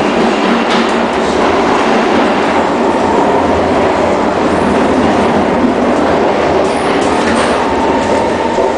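SMRT C151 metro train in motion, heard from inside the car: a loud, steady running noise of wheels on rail and motors.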